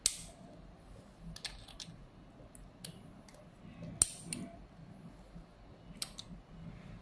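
Scattered light metallic clicks and clacks from a two-piece steel flaring clamp bar being handled as a half-inch copper tube is set and clamped in it; the sharpest click comes about four seconds in.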